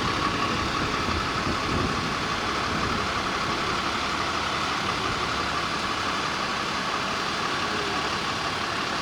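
A vehicle engine idling steadily, with a steady high hum running over it.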